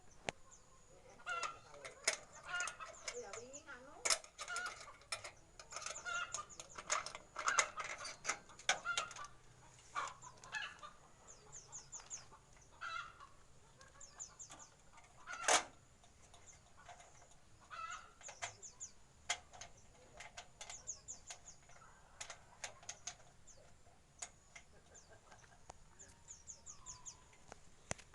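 Small birds calling and chirping, with wingbeats and sharp knocks as they flutter about. A busy patch of knocks and calls fills the first half, and quick runs of high, falling chirps repeat throughout.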